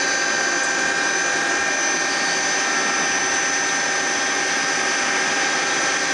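Steady noise of running machinery, an even whir with two constant high-pitched whines, unchanging throughout.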